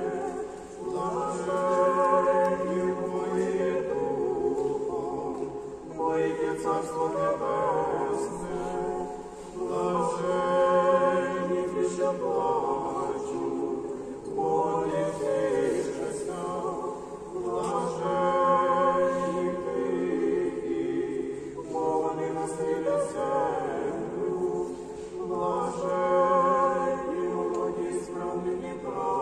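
Church choir singing an unaccompanied Eastern-rite memorial (panakhyda) chant, with several voices in harmony. The phrases are held for a few seconds each, with short breaks between them.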